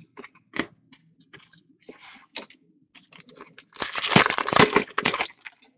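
Light ticks and rustles of card handling, then a hockey card pack's wrapper torn open a little under four seconds in, crinkling loudly for about a second and a half.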